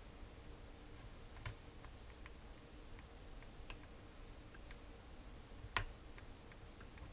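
Scattered small plastic clicks and ticks from a two-pin wire connector being handled and pushed together by gloved hands, with a sharper click about a second and a half in and the loudest one near the end.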